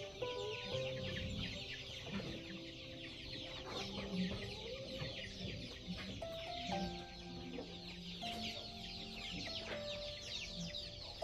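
Chickens clucking amid a dense chatter of high chirps, over a slow instrumental melody of held notes.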